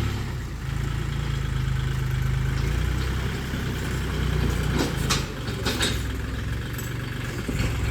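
Tractor engine running steadily at low revs, with a few short knocks a little past the middle.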